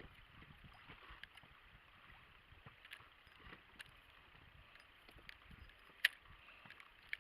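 Small waves lapping against an inflatable boat: a faint, even splashing with scattered small clicks, and one sharper click about six seconds in.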